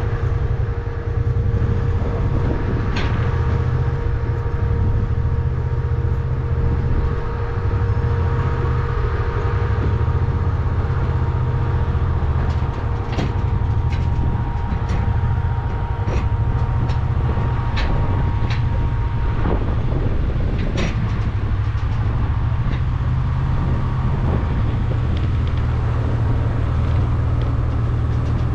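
Vehicle engine running steadily under way: a constant low drone with a faint steady whine, and light rattles and clicks now and then.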